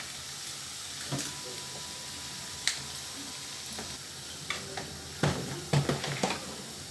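Pieces of meat frying in hot oil in a pot, a steady sizzle, with a few sharp knocks of a utensil against the pot and a louder cluster of clatter near the end.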